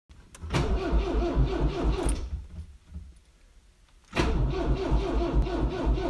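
Car engine cranking on its starter without catching, in two tries: the first lasts about a second and a half, and after a short pause the second begins about four seconds in.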